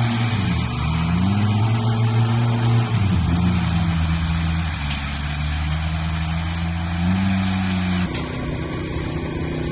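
Construction machinery engine running on the job site, its pitch gliding and stepping up and down several times as the machine works.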